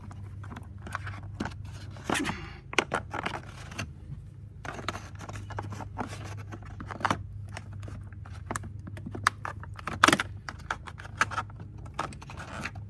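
Vinyl side jamb of an Andersen Narroline window being pried and worked loose with a screwdriver and by hand: irregular scrapes, clicks and small cracks of plastic, over a steady low hum.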